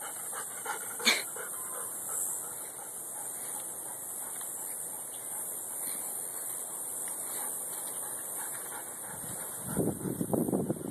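Steady outdoor hiss of wind on a phone microphone. There is a single click about a second in, and a short rough low sound near the end.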